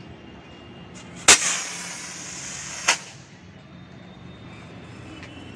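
Diwali rocket firework tied to a kite going off: a sudden loud burst about a second in, a hiss for about a second and a half as it flies, then a sharp crack.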